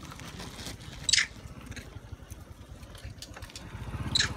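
A motor running with a steady low pulsing rhythm, probably a motorcycle engine, growing louder near the end. Over it come two short, sharp, high squeaks from the crowding macaques, one about a second in and one near the end.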